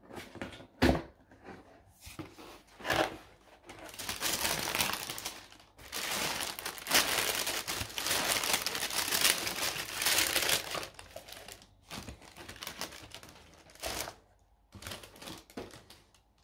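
Tissue paper rustling and crinkling as a pair of new shoes is unwrapped in a cardboard shoebox. It is densest in the middle, with a few short sharp knocks of the box near the start and again near the end.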